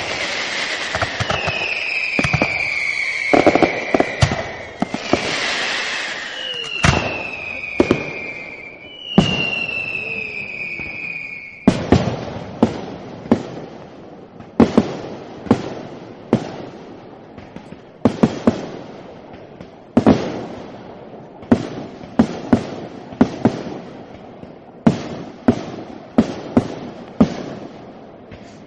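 Fireworks going off: loud bangs mixed with long whistles that fall slightly in pitch. About twelve seconds in, the whistles stop and a fast run of sharp bangs and crackles follows, several a second.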